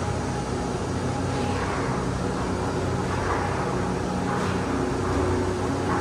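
Gondola lift terminal machinery running: a steady mechanical drone and low hum as the cabins are carried along the station's overhead rail and conveyor, with a couple of brief swells of rattling noise.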